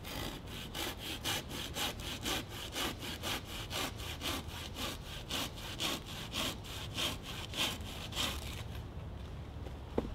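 Hand saw cutting through a fallen wooden branch in steady back-and-forth strokes, about three a second, stopping a little over a second before the end. A single sharp crack follows shortly after.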